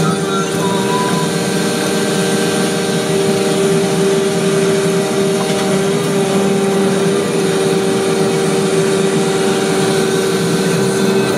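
Vacuum paving machine running: a steady, unbroken engine drone with a constant hum.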